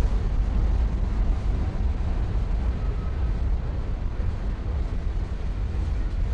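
Freight cars of a slow mixed freight train rolling past along the track, a steady low rumble of wheels on rails.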